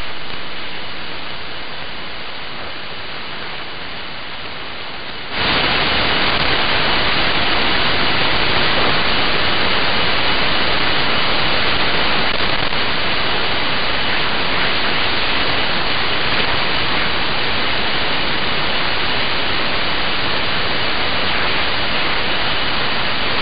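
Static hiss from a shortwave receiver's AM audio on the 40-metre amateur band, with a faint steady whistle in it. About five seconds in the hiss jumps louder and stays so, as the calling station's carrier drops off the air and the receiver's gain rises on the empty band.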